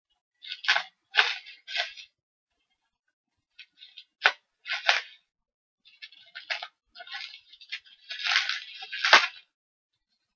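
Scissors snipping through bubble wrap in short bursts, the plastic crinkling, with a couple of sharper snaps.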